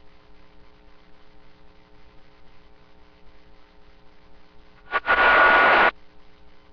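CB radio receiver hissing faintly with a low steady mains hum, then about five seconds in a loud one-second burst of static that cuts off suddenly.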